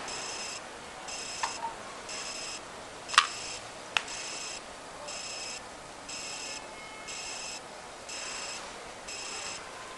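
High-pitched electronic beeping: a half-second beep repeating about once a second, steady throughout. A few sharp clicks cut in, the loudest about three seconds in.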